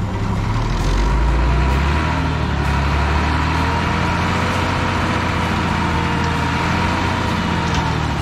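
Tipper lorry's diesel engine revved up and held to power the hydraulic hoist as the loaded dump bed lifts, with a steady high whine over the engine note.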